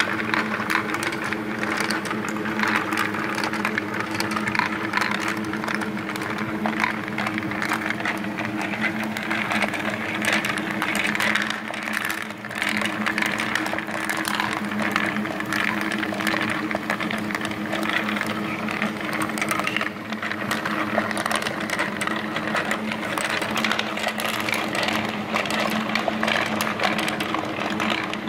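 Laser-cut wooden marble machines running: steel ball bearings rolling and clicking over wooden tracks and lift steps in a constant irregular clatter, over a steady hum from the drive mechanism.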